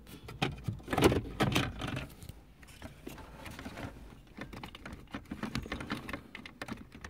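Irregular light clicks, taps and scuffs from a hand handling the phone and rubbing against the car's plastic console trim, busiest about a second in.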